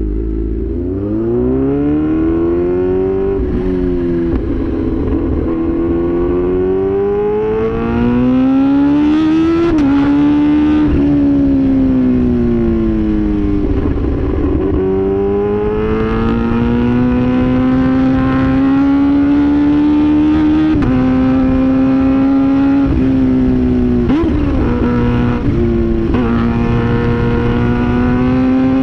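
Kawasaki H2 Carbon's supercharged 998 cc inline-four pulling away and accelerating on the road: its pitch rises from low, then climbs and dips several times as the rider works the throttle and gears. Wind and road noise run underneath.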